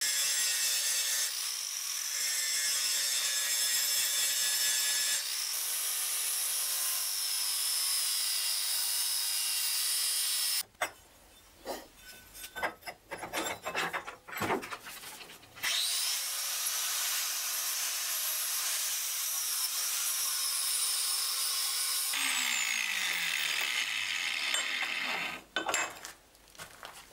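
Angle grinder cutting into a piece of steel angle clamped in a bench vise, a steady high grinding noise. In the middle it stops for a few seconds of knocks and handling at the vise, then the grinder spins up again, grinds for about six seconds and winds down, followed by a few more knocks.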